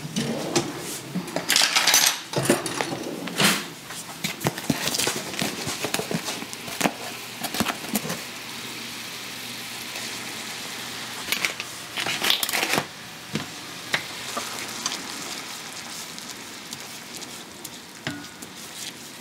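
Cookware clatter: a plastic measuring spoon knocking against a container and a stainless skillet, and a wooden spatula stirring and scraping the pan, with louder clusters of clinks about two seconds in and again about twelve seconds in. Underneath is the faint steady hiss of broth simmering in the skillet as flour is stirred in to thicken a gravy.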